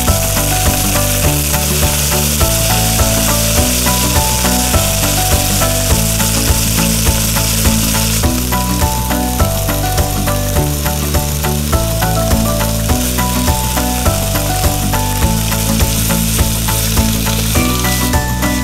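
Background music with a steady beat and bass line, over the sizzle of vegetables and noodles stir-frying in a wok.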